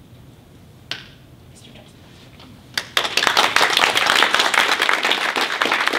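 A small audience applauding, the clapping starting about three seconds in after a quiet pause broken by a single sharp click about a second in.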